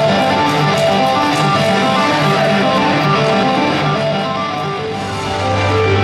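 Music led by guitar.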